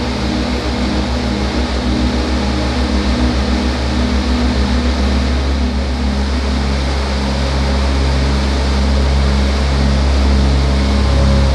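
Steady rushing roar of a jet in flight, heard from inside the cockpit, mixed with music that has a low bass line stepping from note to note.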